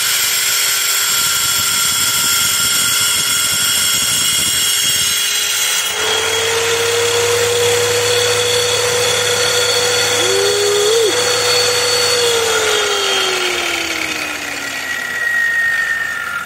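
Wet tile saw with a diamond blade running loud while cutting through agate: a steady motor whine with a grinding hiss. Near the end the whine falls steadily in pitch as the saw winds down after the cut.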